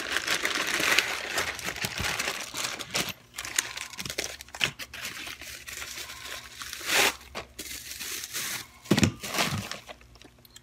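Plastic packaging bags and foam wrapping crinkling and rustling as they are handled. The crinkling is dense for the first few seconds, then comes in scattered short bursts.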